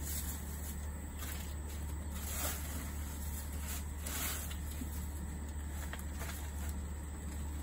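Dry leaves rustling as they are tipped and shaken from a plastic tray into a plastic bucket, a few soft rustles about a second apart over a steady low hum.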